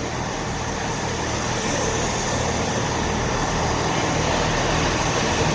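Diesel engines of a Class 166 multiple unit running steadily, slowly growing louder.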